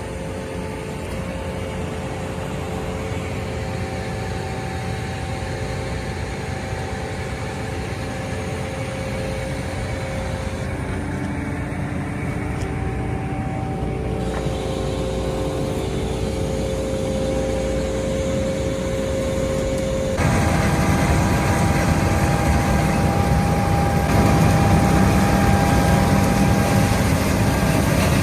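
Farm harvest machinery engine running steadily with a constant high whine. About two-thirds of the way through it suddenly becomes louder and fuller.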